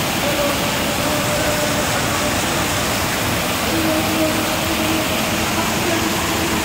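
Rows of fountain jets spraying up and splashing back into a shallow pool: a steady, even rush of falling water.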